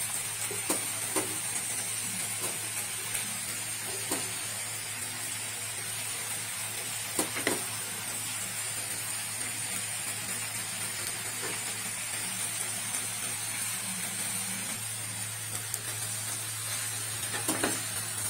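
Mixed vegetables sizzling gently in mustard oil in a pan, a steady frying hiss, with a few light clicks of a wooden spatula against the pan.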